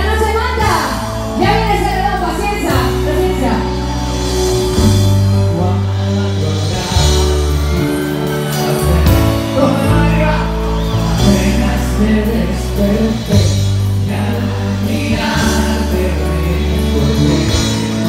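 Live band playing loud amplified music with singing and shouted calls, over deep bass notes that change every second or two.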